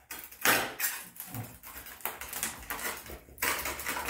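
Metal spatula scraping grout out of the narrow joints around a ceramic wall tile, in a run of short, irregular strokes, to free the tile from the wall.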